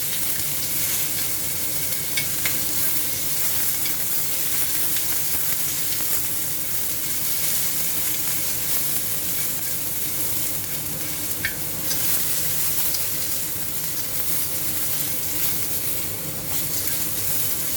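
Garlic and sliced onion frying in hot oil: a steady sizzle as they are stirred, with a few light clicks.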